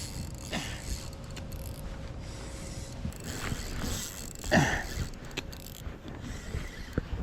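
Fishing reel being cranked, its gears and ratchet clicking, with scattered knocks and one louder knock a little past halfway.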